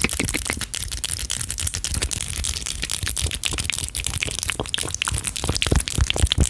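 Fast, intense ASMR mouth sounds picked up by a microphone at full sensitivity: a rapid, irregular stream of clicks and pops, several a second, over a low rumble and hiss.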